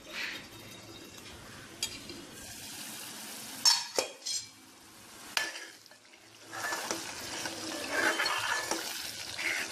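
Masala frying in oil in an aluminium pot, sizzling and bubbling, while a metal spoon stirs it and knocks against the pot a few times. The sizzling and stirring grow louder about two-thirds of the way through.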